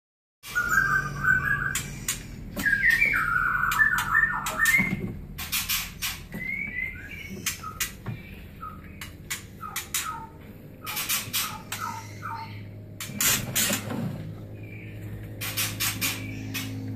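Young white-rumped shamas, still in spotted fledgling plumage, giving bursts of short chirps and harsh squawks, loudest in the first few seconds, among many sharp clicks, over a low steady hum.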